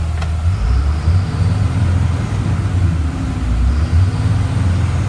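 Engine of a 2004 Blue Bird All American school bus running; about half a second in its speed rises and holds at a higher steady pitch. It revs up smoothly, a sign that the engine is in good running order.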